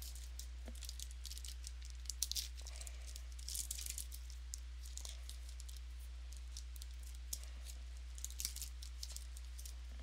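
Trading cards being handled and flipped through by hand: scattered light clicks, slides and rustles of cardstock, with a few louder ones around two seconds in and again near the end. A steady low electrical hum runs underneath.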